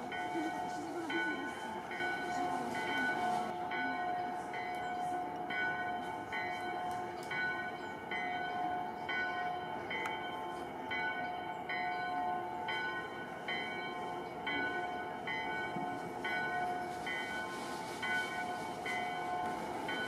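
Bells ringing in a steady, even rhythm, a little more than one stroke a second, each stroke's tones carrying over into the next.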